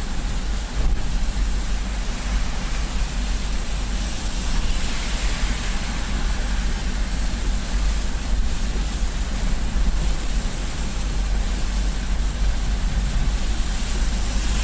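Car driving on a wet highway in heavy rain: a steady low road and engine rumble with a constant hiss of rain and tyre spray.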